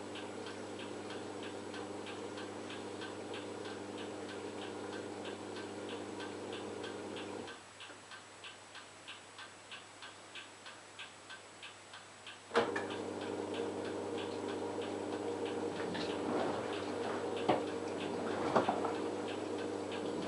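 LG F1443KD front-loading washing machine mid-wash: the drum motor hums steadily, stops about seven seconds in, then starts again with a click about five seconds later, with more uneven swishing toward the end. A steady ticking, about two to three a second, runs throughout.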